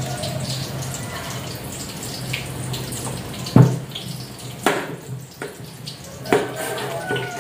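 Tofu sizzling in hot oil in a wok, a steady hiss. About halfway through, a knife chops through chayote onto a plastic cutting board with a sharp knock, followed by several lighter cuts.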